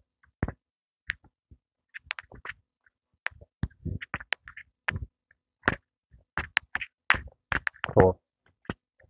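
Footsteps on a dirt and gravel trail: short, irregular thuds and scuffs, roughly one every half second to a second.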